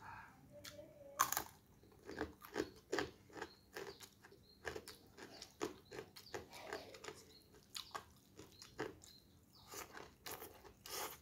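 Close-up chewing of a mouthful of crispy fried salted fish and rice. There is a sharp crunching bite about a second in, then steady crunching about twice a second.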